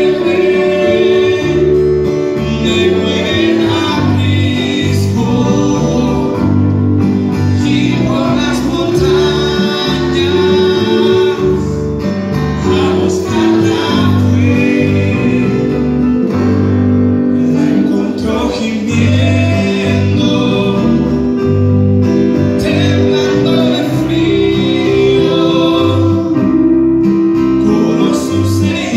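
Live worship band playing a Spanish-language hymn: a man singing into a microphone over strummed acoustic guitar, congas, keyboard and electric guitars.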